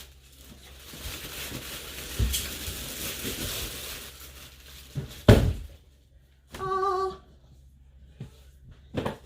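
Packaging rustling as a new pair of roller skates is unpacked, with a dull thunk about two seconds in and a louder knock a little after five seconds. A short humming tone, about half a second long, follows near seven seconds.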